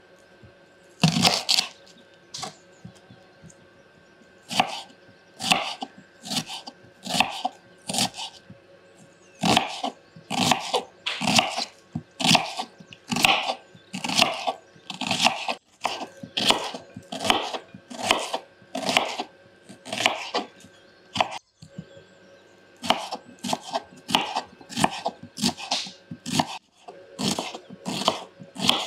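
Kitchen knife slicing an onion on a wooden cutting board: a steady series of cuts, each ending in a knock on the board, about one to two a second.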